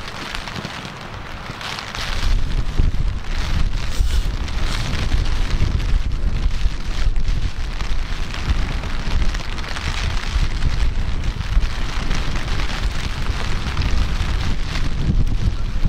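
Wind buffeting the microphone: a steady, uneven low rumble with a rushing hiss over it, dipping for about two seconds near the start.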